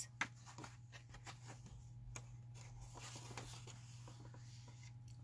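Faint paper rustling and small taps as a picture book's page is turned by hand.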